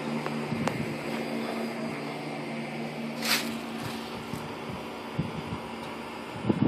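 2006 Pontiac GTO's 6.0 L LS2 V8 idling with a steady hum. A short hiss comes about halfway through, and a few thumps come near the end.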